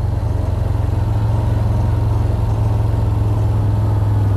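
Quad bike (ATV) engine running steadily at an even, low pitch while the quad is ridden, getting slightly louder toward the end.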